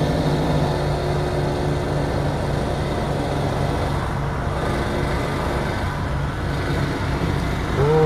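Steady engine drone of a remote-controlled slope mower working across a roadside verge, mixed with road traffic; a car drives past about four seconds in.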